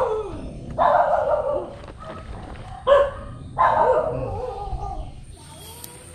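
A dog barking several times, a few separate barks over about five seconds, then quieter.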